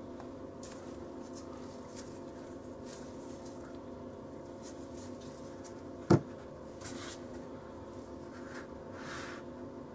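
Nitrile-gloved hands handling a small aluminium tube capsule with a stopper and cord, with faint rubbing and rustling. One sharp knock about six seconds in as the metal tube is set down on the table. A steady low hum runs underneath.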